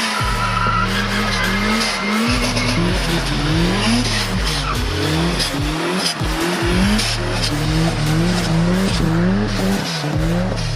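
A car engine revving hard, its pitch climbing and dropping over and over, over loud noise from the car.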